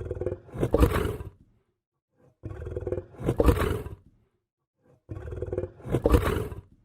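Lion growling: three growls about two and a half seconds apart, each about a second and a half long and swelling to a louder second half, with dead silence between them.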